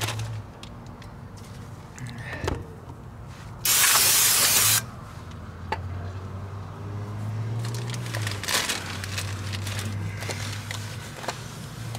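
Aerosol can of brake cleaner sprayed into a brake drum in one hissing burst of about a second, a few seconds in. A low steady hum and a few light clicks run underneath.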